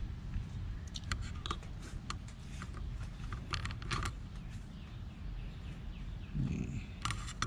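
Scattered light clicks and taps of tools and parts being handled while the oil is changed, over a low steady rumble.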